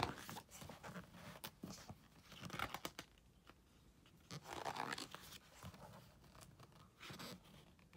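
Paper rustling as the pages of a large printed book are handled and turned, in a few soft swishes, the broadest about halfway through.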